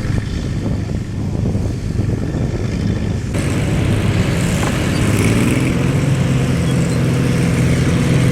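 International 315 combine running under load while harvesting wheat, a steady engine drone. About three seconds in, a hissing, rattling layer from the threshing and cutting suddenly joins it and the sound gets a little louder.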